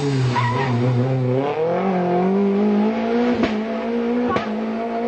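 Renault Clio Williams rally car engine running. Its note drops over the first second or so, then climbs slowly and holds steady. Two sharp clicks come in the second half.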